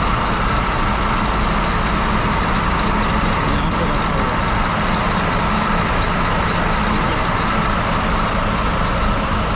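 A bus engine idling steadily: a constant low rumble with a steady hum above it.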